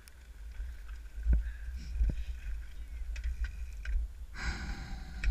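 Mountain bike setting off down a rocky dirt trail, heard from a helmet camera: a steady low rumble with sharp knocks about one and two seconds in, and a short burst of noise about four seconds in.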